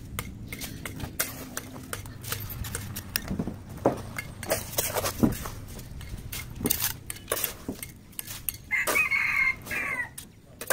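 A rooster crows once near the end, over a run of sharp taps and scrapes from bricklaying work with a trowel on bricks and mortar.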